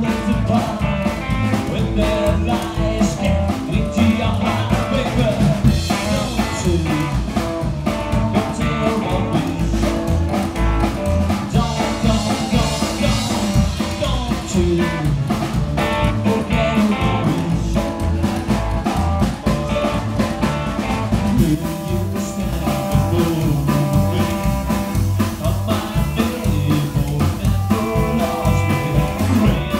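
Live band playing rock and roll: upright double bass, guitar and drum kit, with a lead singer on the microphone.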